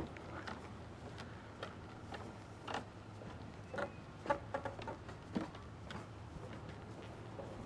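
Irregular light clicks and knocks, a few a second, over a steady low hum.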